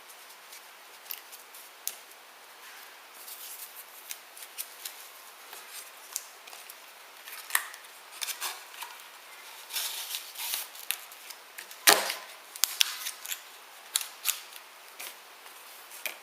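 Scattered light clicks, taps and brief rustles of a replacement iPhone 5 screen being handled and packed into an EVA box, with one sharp snap about twelve seconds in.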